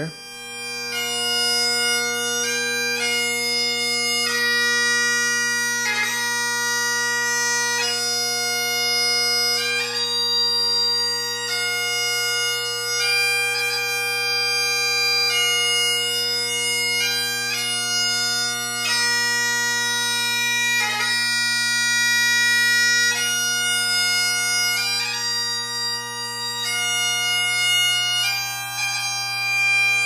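Great Highland bagpipe playing the slow ground (ùrlar) of a piobaireachd. The drones hold a steady chord under the chanter's long, held melody notes, and each note change is marked by quick gracenotes.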